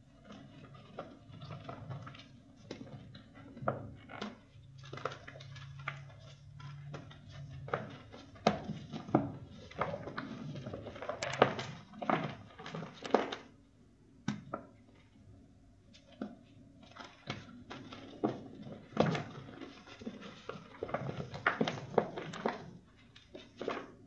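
Crunchy reformed chalk (charcoal reforms) crushed and squeezed by hand, an irregular run of crunches and crackles with powdery crumbling in between.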